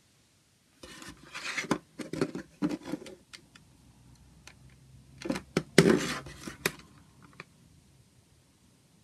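Plastic CD jewel case being picked up and handled against a tabletop: clicks, taps and scrapes of hard plastic, in two bursts about a second in and about five seconds in.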